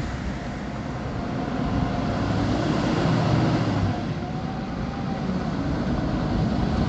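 Diesel engine of a Scania Next Gen timber truck approaching at low speed: a deep, steady drone that grows louder over the first three seconds.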